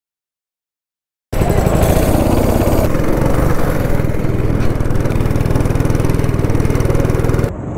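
Go-kart engine running loud and steady as the kart is driven round the track, heard from the driver's seat. It starts abruptly about a second in after silence and cuts off suddenly near the end.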